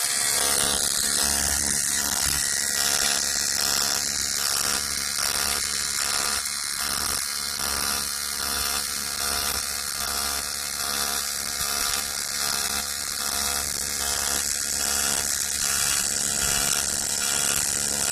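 Automatic TIG welding arc on 3 mm aluminium pipe, running along the seam with a steady buzz and hiss and a faint regular pulsing about twice a second.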